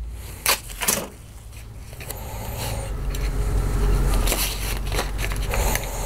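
Adhesive tape being handled and pressed down over a pickup cable, with sharp clicks near the start and scattered crackling after. A low rumble builds underneath from about a second in.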